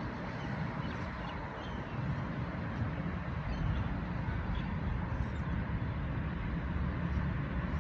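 A steady low rumble of background noise, with faint short bird calls scattered through it.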